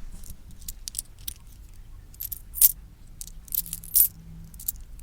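A handful of loose change being handled, metal coins clinking against each other in irregular bursts of short, bright clinks, the loudest about halfway through and again near four seconds.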